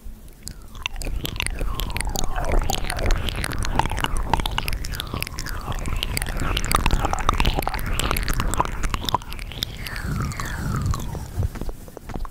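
ASMR mouth sounds recorded binaurally: a dense run of clicks and smacks at the lips, mixed with short notes that slide down in pitch. They start about half a second in and thin out near the end.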